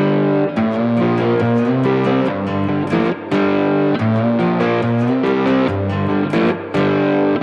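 Guitar-driven intro music with a steady beat and sustained chords, with brief breaks about three and six and a half seconds in.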